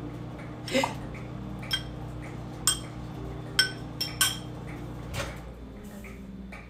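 A metal fork clinking against a glass salad bowl as a salad is stirred: about six sharp, ringing clinks spread over some four seconds.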